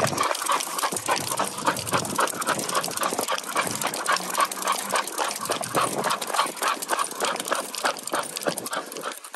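A bull terrier panting in quick, even breaths, about three a second, as it trots on the leash.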